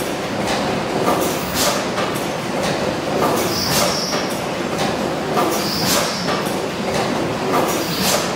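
1914 Richard Hornsby Stockport gas engine running slowly on one cylinder. A sharp beat with a short hiss comes about every two seconds, with lighter clicking from the valve gear between the beats.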